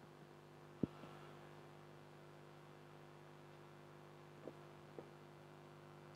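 Near silence with a steady low electrical hum. A sharp click comes just under a second in, and two fainter clicks come near the end.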